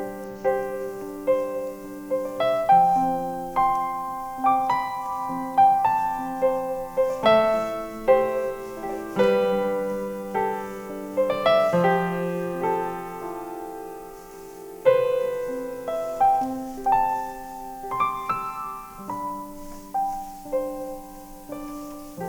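Solo piano playing a slow instrumental passage, chords and single melody notes struck one after another and left to ring and fade.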